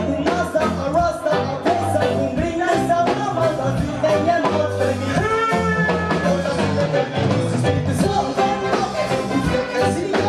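Live reggae band playing: electric guitars, bass and drums on a steady beat, with several voices singing over them.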